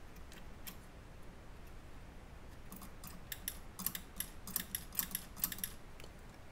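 Light metallic clicks from the small parts of a Beocord 5000 cassette tape drive being fitted by hand as a thrust roller arm and its spring are seated. A few faint ticks at first, then a quick run of about a dozen sharp clicks in the second half.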